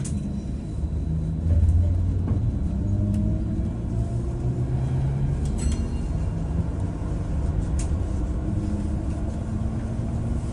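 Cabin noise on the upper deck of a Wright StreetDeck Electroliner battery-electric double-decker bus under way: a steady low rumble from the tyres, suspension and body. A brief high-pitched tone sounds a little past halfway.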